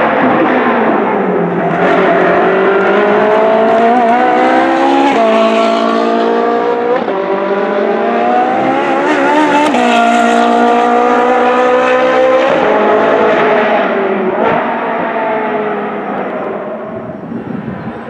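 Ferrari 458 Challenge's V8 racing engine at full throttle on track, its pitch climbing and then dropping back with several quick upshifts. It is loudest as the car passes close by, then fades as it pulls away.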